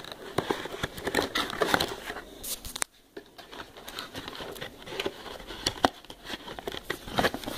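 Cardboard packaging insert being handled as a webcam and its cable are worked out of it: irregular rustling, scraping and small knocks of card and plastic, with a brief pause about three seconds in.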